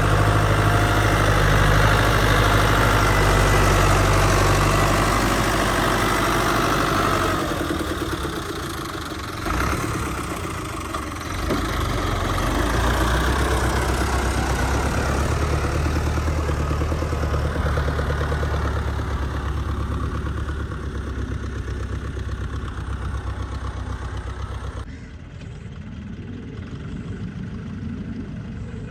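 Fiat 640 tractor's diesel engine running steadily as it pushes soil with a hydraulic front blade. The sound drops and turns more distant about three-quarters of the way through.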